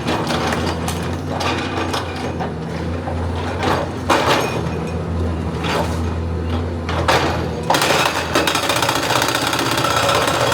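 Excavator at work: its diesel engine running steadily under repeated metallic clanks and knocks, growing denser and harsher near the end.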